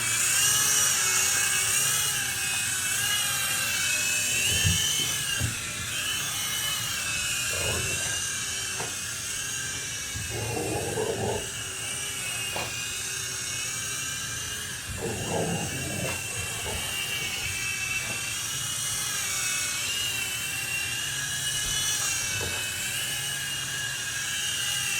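Small toy RC helicopter's electric rotor motors whining steadily, the pitch wavering up and down as the throttle changes. A few brief thumps and scuffling noises come in underneath, twice for about a second.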